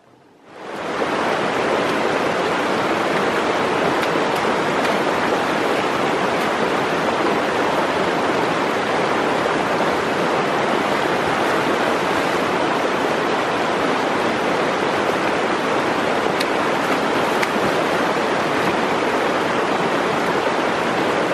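Shallow, rocky mountain creek rushing steadily over stones, loud and close.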